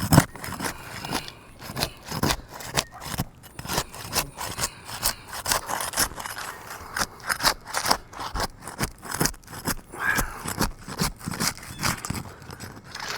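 Asphalt roof shingle being pried up with a tool: rapid, irregular scraping and crackling as the sealant strip is broken loose. The seal is very strong, so the shingle tears and delaminates instead of releasing cleanly.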